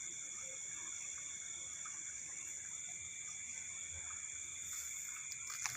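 Steady chorus of night insects: several high-pitched trills held at a constant pitch.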